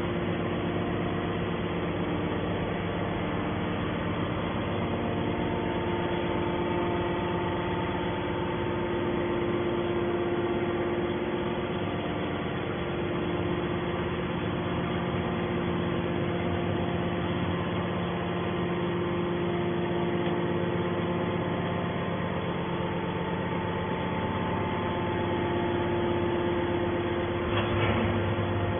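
Hydraulic scrap metal baler running with a steady machine hum made of several held tones, with a short knock near the end.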